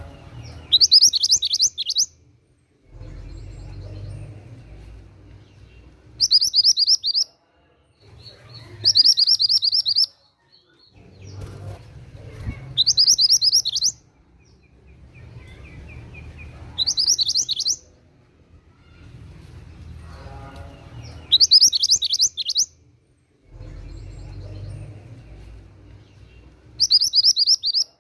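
Mantenan gunung songbird singing seven short phrases of rapid, high, repeated notes, one about every four seconds, each lasting a second or so. Fainter, lower sounds fill the gaps between phrases.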